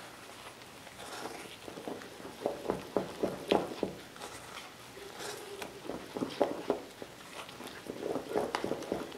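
Wooden-handled spoon stirring thick batter in a stainless-steel mixing bowl: wet slapping and scraping with irregular knocks against the bowl, loudest about two to four seconds in and again around six and eight seconds.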